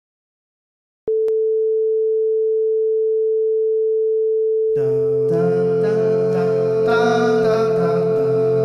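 A steady single-pitched line-up tone, the kind that runs under a videotape countdown clock, comes on suddenly about a second in. About five seconds in, music joins on top of it while the tone carries on unchanged.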